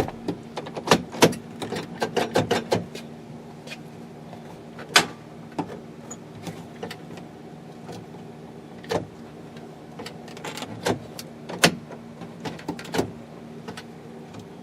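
Plastic interior door trim of a Chevy pickup being pressed and snapped back into place: a run of sharp, irregular clicks and knocks, thickest in the first few seconds and again from about ten to thirteen seconds in, over a faint steady hum.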